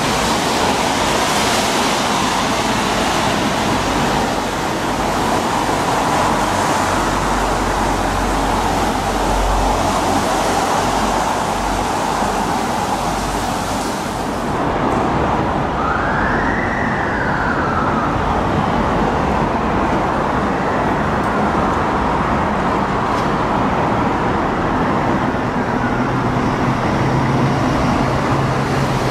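Steady city traffic noise. About halfway through, a siren wails once, rising and then falling, and a fainter wail follows. Near the end a Scania fire engine's diesel engine idles with a steady low hum.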